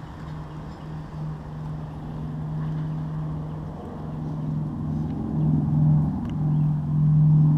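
B-29 bomber's four radial piston engines droning steadily in the distance, growing louder near the end as the aircraft approaches.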